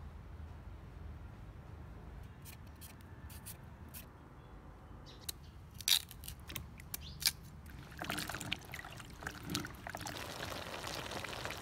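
A knife cutting pieces off a raw purple sweet potato, the pieces dropping into a bowl of water with a string of sharp clicks and plops. From about eight seconds in, hands swish and rub the cut sweet potato chunks around in the water.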